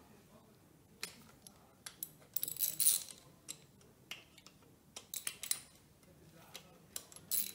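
Wrench clicking and clinking on the timing-belt tensioner bolts of a Ducati engine as they are cracked loose, in short irregular bursts of metallic clicks, the busiest about halfway through and again near the end.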